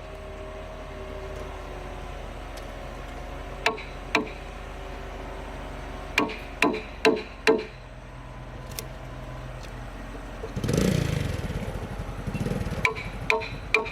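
Sharp knocks in small groups of two to four strikes, typical of striking tools working timber. About ten and a half seconds in, a small engine starts up and runs unevenly, with more knocks over it near the end.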